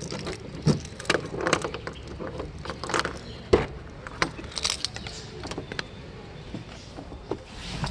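A bunch of keys jangling and a key clicking and turning in the driver's door lock of a 2004 Mahindra Scorpio, opened by key rather than remote, with scattered short clicks and rattles.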